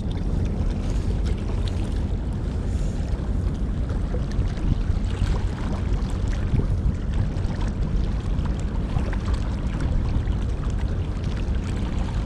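Steady wind rumble on the microphone over the wash of choppy water against the rocks of a breakwater.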